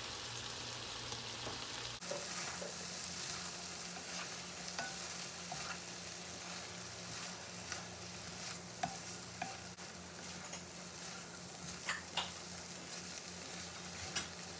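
Pan of chicken igado sizzling steadily as it cooks, stirred with a utensil that clinks against the pan now and then.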